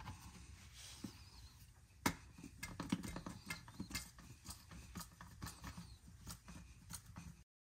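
Quart-size hand pump on a gear oil bottle being worked, clicking and knocking about two to three times a second as gear oil is pumped into a truck's rear axle. Light handling of the pump and hose comes first, then the strokes begin about two seconds in and cut off suddenly near the end.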